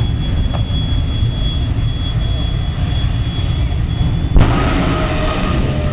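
Jet dragster's turbine engine running, a steady low rumble with a thin high whine. A little over four seconds in, a sharp click cuts the whine off and a busier sound follows.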